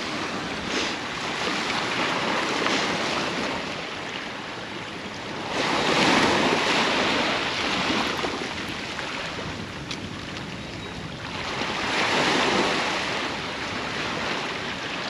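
Sea surf on the beach: a continuous wash of waves, with two bigger breakers crashing about six seconds apart.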